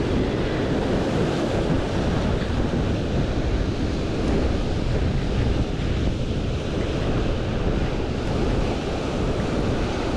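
Ocean surf washing on the beach, with wind buffeting the microphone in a steady rumble.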